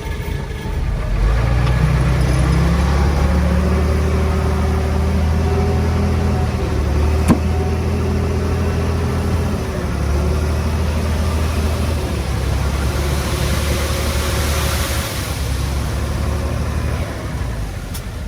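Heavy-equipment diesel engine working: it runs up about a second in, holds steady, and eases off near the end, with one sharp knock about seven seconds in.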